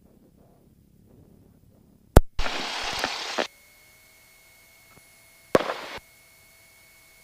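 A sharp electrical click, then a loud burst of static hiss lasting about a second, after which a faint steady electrical whine sets in; a second click and shorter static burst come about five and a half seconds in. Typical of the cockpit intercom or radio audio feed being connected or keyed.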